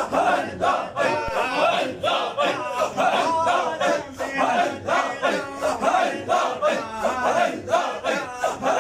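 A large group of men chanting Sufi dhikr together, loud voices pulsing in a fast, steady rhythm.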